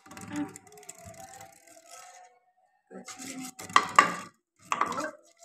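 Green plastic soft-drink bottle spun on a wooden tabletop, scraping and rattling as it turns and slows. Two sharp knocks come about four seconds in.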